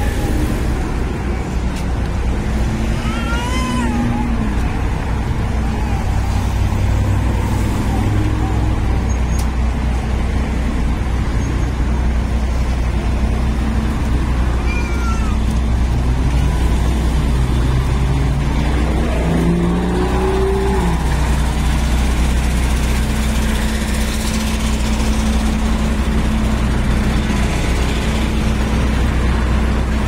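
Road traffic passing on a city street with a steady low rumble of wind buffeting the microphone. Partway through, a vehicle's engine rises in pitch as it pulls away.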